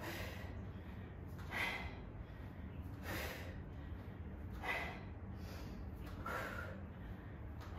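A woman's sharp, forceful breaths, one with each kettlebell swing, five in all at about one every second and a half, over a steady low hum.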